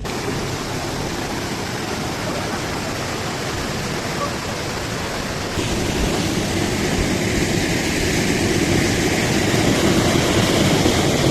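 Floodwater rushing through a street, a steady dense rush of water noise; a little past halfway it shifts in tone and grows slightly louder.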